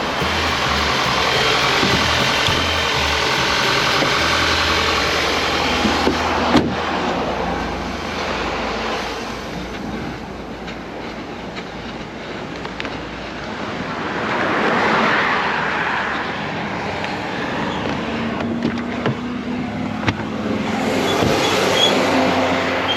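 Vehicle engine running steadily, with a few sharp knocks, the loudest about six seconds in.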